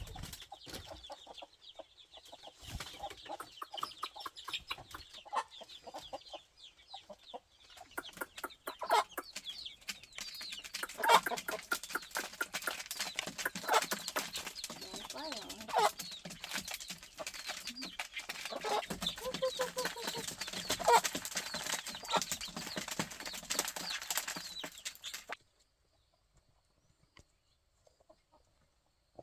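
Chickens clucking, with many sharp clicks and scuffles among the calls. The sound grows busier about a third of the way in, then cuts off suddenly near the end.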